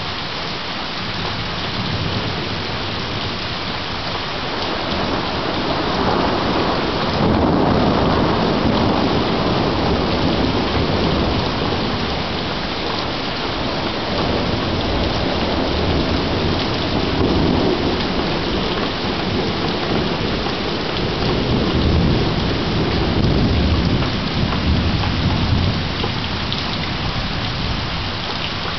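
Heavy rain falling steadily, with long rolls of thunder over it. One roll builds about six seconds in and rumbles on for several seconds; another swells about twenty seconds in.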